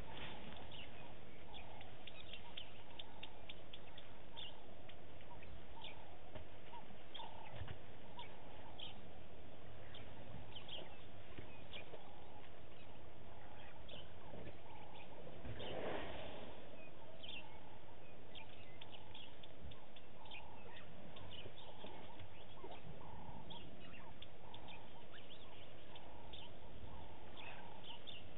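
Bush ambience of many birds chirping and calling without pause, with a repeated lower call about once a second in the second half. A brief louder noise comes about halfway through.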